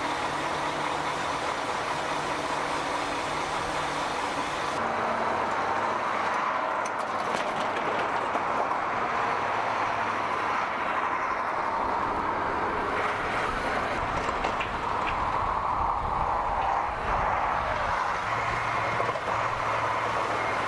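A vehicle running steadily, with a steady noise and low engine tones, which changes abruptly about five seconds in.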